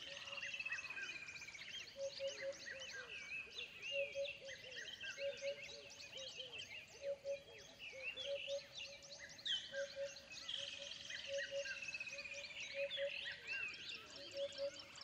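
Wild bush chorus of many birds chirping and calling, with a lower note repeated in short groups of two or three every second or two. A long falling trill comes at the start and again about ten seconds in.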